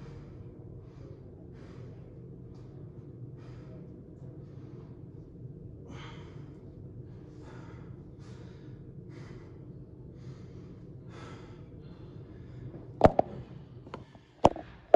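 A man breathing hard in short, regular puffs, about one or two a second, over a steady low hum. Near the end, two loud knocks as the phone doing the filming is picked up and handled.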